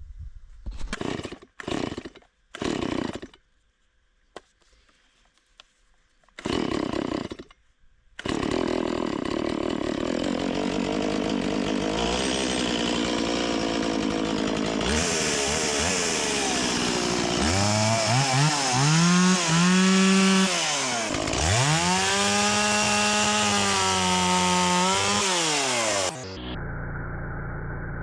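Two-stroke chainsaw being started: several short bursts, then it catches about eight seconds in and runs steadily. Later it revs up and down twice, its pitch dipping and climbing again. Near the end the sound turns abruptly quieter and duller.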